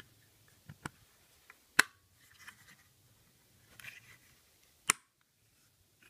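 A few sharp clicks and light scrapes of a solid-state drive being pressed by hand into a laptop's metal drive caddy. The loudest click comes about two seconds in, another near five seconds.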